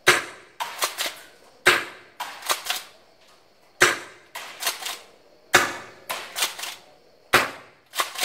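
Gas-powered Secutor Velites airsoft shotgun, its shortest model, firing five shots about two seconds apart. Each sharp crack is followed within a second by a few quicker, fainter clacks.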